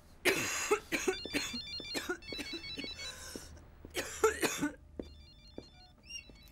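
A mobile phone ringing with an electronic ringtone, a quick repeating pattern of high beeps, heard twice. Two loud, harsh bursts stand out over it, one near the start and one about four seconds in.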